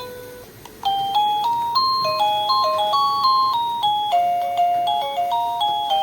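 Electronic doorbell chime playing its ringtones: one melody ends on a held note, and about a second in a new tune of clean beeping notes starts at about three to four notes a second.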